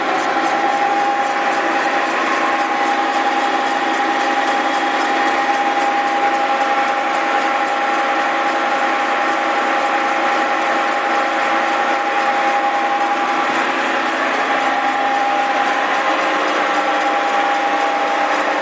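Milling machine running a face-milling cutter across the deck of a Willys F-head engine block on a light one-thousandth-inch finishing pass: a steady mechanical whine and hiss with a fast, even ticking.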